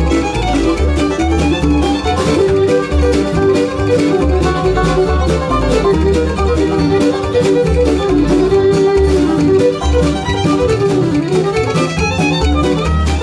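Fiddle leading a fast, gypsy-flavoured bluegrass instrumental, backed by a full band with guitar, banjo, bass and a steady percussive beat.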